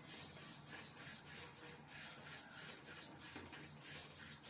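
Wooden spatula stirring white sesame seeds as they dry-roast in a metal kadai: a soft, repeated scraping rustle, about two or three strokes a second.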